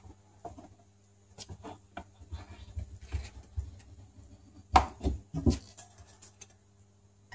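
A throttle cable being set into a small steel bench vise and the vise clamped shut: irregular clicks, scrapes and metal knocks, the loudest two knocks about five seconds in, over a faint steady hum.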